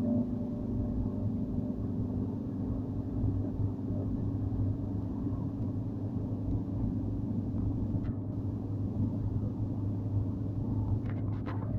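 A car driving at speed, heard from inside the cabin: a steady low rumble of engine and road noise with a constant drone.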